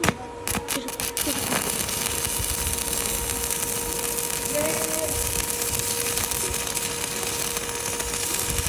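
Electric arc welding: a few sharp cracks as the arc is struck, then from about a second in the steady crackling hiss of the running arc, over a constant hum.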